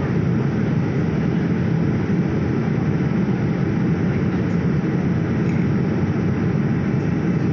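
Steady cabin noise of an airliner: engines and rushing airflow heard from inside the passenger cabin, an even low rumble with no change in level.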